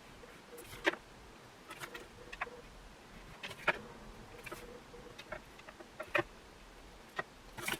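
Faint, scattered light ticks and scratches of a pen and paper being handled while lines are drawn, about eight short sounds spread unevenly over several seconds.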